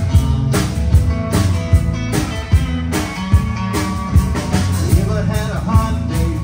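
Live rock band playing: electric guitar, bass guitar and drum kit keeping a steady beat, with a strong drum hit about every 0.8 seconds. A man's lead vocal comes in about five seconds in.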